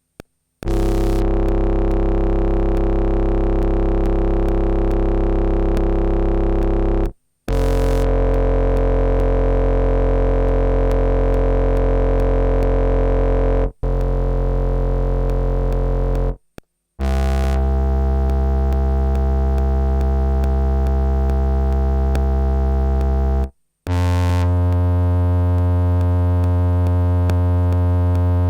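Moog Messenger analog synthesizer playing a series of long held notes, each about six seconds with a bright attack and a steady sustain, separated by brief silences, as its sounds are recorded into an MPC sampler.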